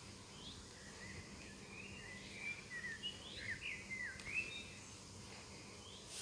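Small songbird chirping faintly: a quick run of short, sliding high notes over a low outdoor hiss, fading out after about four seconds.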